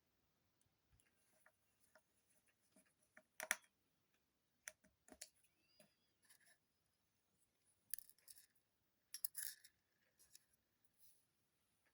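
Scattered light clicks and taps of small tools and smartphone parts being handled and fitted during reassembly, the sharpest about three and a half, eight and nine and a half seconds in.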